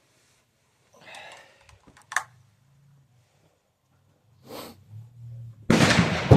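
A sharp metallic click about two seconds in, then near the end a single loud gunshot from a 3D-printed AR-15-type rifle. The shooter suspects the bolt is not travelling back far enough for the action to cycle.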